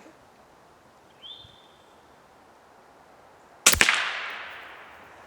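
A single shot from an FX Dreamline .25-calibre PCP air rifle firing a hybrid slug: a sharp crack about two-thirds of the way in, followed by a tail that fades over about a second and a half.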